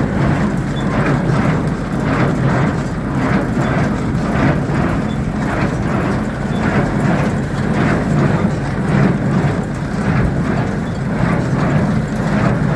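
CLAAS Dominant small square baler running off a tractor's PTO: a loud steady mechanical rumble with a regular beat about twice a second.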